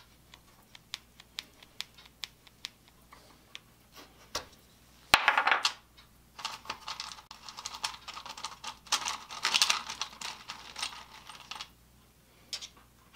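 Small metal hardware handled on a wooden workbench: light ticks about half a second apart, a sharp clack about five seconds in, then several seconds of metal clinking and rattling.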